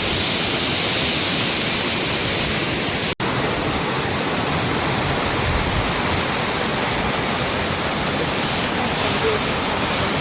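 Waterfall rushing, a steady loud wash of falling water, broken once by a split-second dropout about three seconds in.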